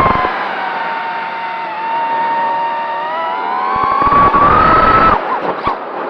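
FPV racing quadcopter's brushless motors whining in flight. The pitch sinks as the throttle eases at the start, climbs from about three seconds in, drops sharply just after five seconds, and rises again at the very end, with gusts of low rumble when the throttle is up.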